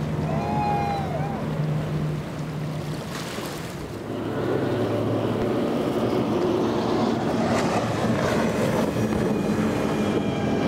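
Outboard engines of a fast centre-console boat running through rough inlet water: a steady engine drone under hull slap and spray, with wind on the microphone. A short high whistle sounds about a second in, and the engine and water noise grow louder from about four seconds in.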